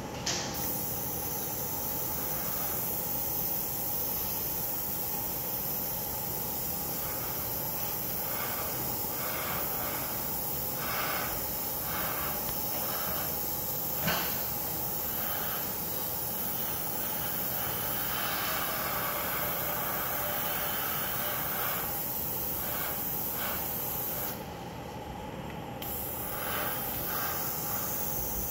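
Gravity-feed airbrush hissing steadily as it sprays thinned paint. There is one sharp knock about halfway through, and the air stops for a second or so near the end before the hiss resumes.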